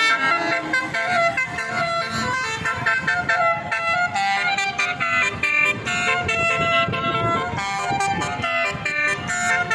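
Bus's telolet (basuri) musical horn playing a tune, many-toned notes changing pitch in quick steps, over the noise of the bus.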